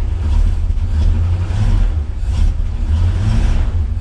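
1977 Chevrolet C-10 pickup's engine running with a loud, steady low rumble while in gear against chocked wheels, the truck trying to move: the newly swapped torque converter in its TH350 automatic is now transmitting drive.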